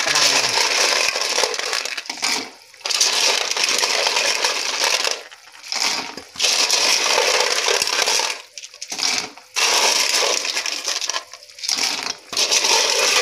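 Blood cockles dropped by the handful into a wok of boiling sauce, their ribbed shells clattering against each other and the pan in several bursts of about two seconds with brief pauses between.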